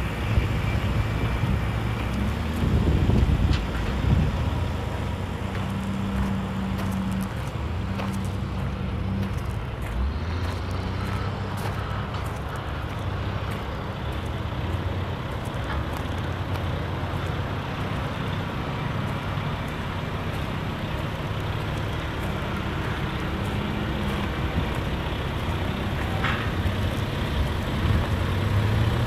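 Peterbilt 579 day cab's Paccar MX-13 diesel engine idling steadily, a low even drone.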